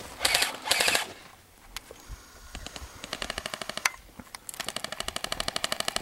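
Airsoft electric guns firing on full auto: two runs of rapid, evenly spaced clicking shots, the second starting about two thirds of the way in and running on. In the first second there are two short, loud bursts of noise.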